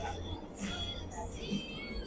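Background music with held tones, and a brief noisy slurp of soup noodles about half a second in.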